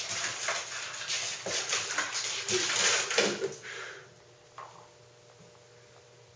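A cat's claws scratching and scrabbling at a wooden door, with knocks, as it clings to the door trying to open it; the scratching stops about four seconds in when it drops to the floor.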